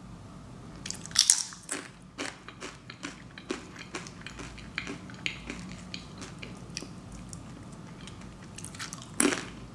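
Close-miked eating: a crunchy bite about a second in, then chewing with small crunches and mouth clicks, and another louder bite near the end.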